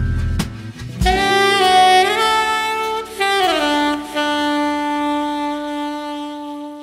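Background jazz music led by a saxophone playing a melody that slides between notes, ending on a long held note that fades out.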